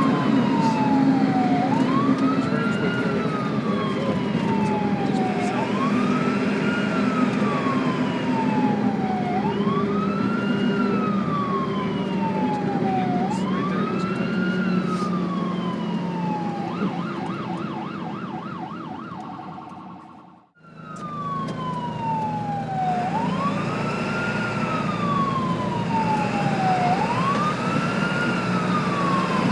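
Ambulance siren wailing over a steady engine rumble, each cycle a quick rise and a slower fall, about one every four seconds. About two-thirds through it switches briefly to a fast yelp of about four to five pulses a second and fades out. Then the wail starts again with the engine rumble.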